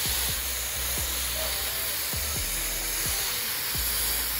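Garden hose spray nozzle spraying water in a steady hiss onto a dog's tail fur, rinsing out hair dye, with background music playing.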